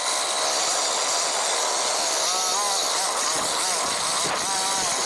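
Steady rushing hiss while riding a Babetta moped over rough grass, with the moped's small two-stroke engine note wavering up and down briefly twice, about two and four and a half seconds in.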